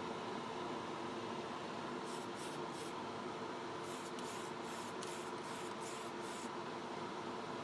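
Short hissing bursts of paint spray: three about two seconds in, then a quicker run of about eight from about four seconds in. A steady hum runs underneath.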